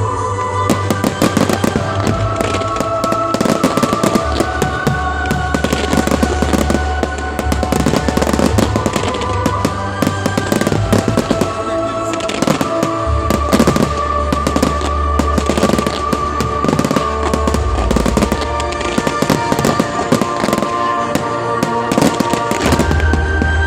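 Fireworks display: many irregular bangs and crackles of shells bursting, over loud music with sustained tones and heavy bass played with the show.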